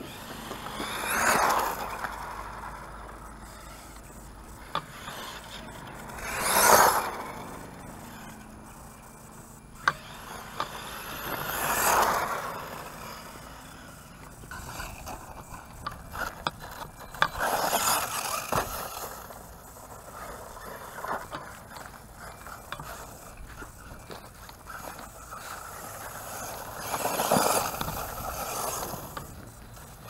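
Redcat Terremoto 10 brushless RC monster truck on a 3S battery driving: its motor and gear whine swells and fades about five times as the truck speeds past and away, the loudest pass about seven seconds in, with scattered clicks and scraping from the drivetrain and ground.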